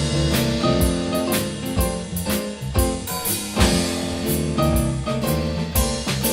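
Live jazz band playing a bluesy instrumental number, with piano over a drum kit keeping a steady beat of drum and cymbal hits.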